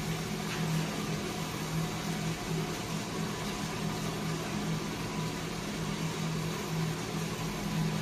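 Small electric coffee roaster running early in a roast: a steady motor and fan hum with a slight throb, over a rushing noise of moving air.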